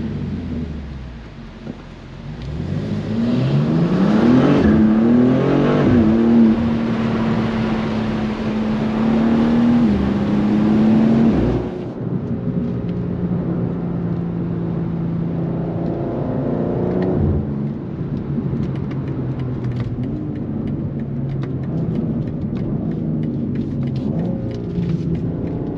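BMW M2 G87 twin-turbo straight-six on the stock exhaust, driven on the road. Its note falls for the first two seconds, climbs steeply under acceleration, then holds mostly steady at cruise with a few shifts in pitch.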